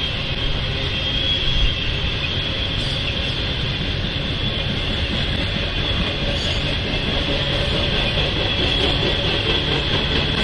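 Intermodal freight train cars carrying trailers and double-stacked containers rolling past, a steady rumble of steel wheels on rail with a constant high-pitched squeal.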